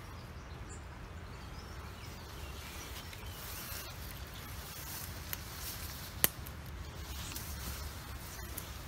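Quiet rustling of leaves, stems and camouflage clothing as people crawl through tall ground vegetation, over a steady low rumble. One sharp click about six seconds in.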